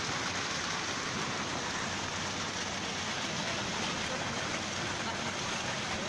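A mudflow of liquid mud and water rushing steadily down a slope, a continuous even rushing noise.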